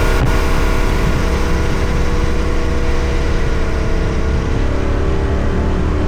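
Yamaha Ténéré 700 parallel-twin engine and exhaust running at a steady cruise while riding, picked up by the camera's built-in mic with wind rush, the engine note easing down slightly after about four seconds.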